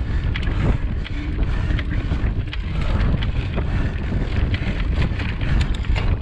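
Wind buffeting the microphone of a camera riding on a mountain bike at speed, a heavy steady rumble, with many quick clicks and rattles from the bike going over rough ground.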